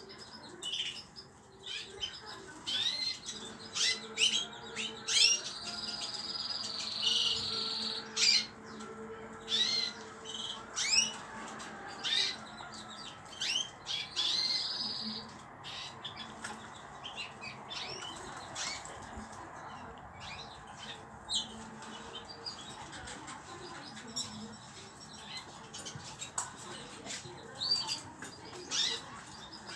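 Small pet cage birds chirping: many short, quick chirps, repeated throughout, with two longer, held high calls, one about six seconds in and one near the middle.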